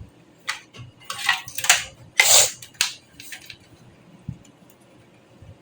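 Hard metal parts of a desktop computer being handled: a run of clicks, scrapes and short rattles over the first three seconds or so, loudest about two seconds in.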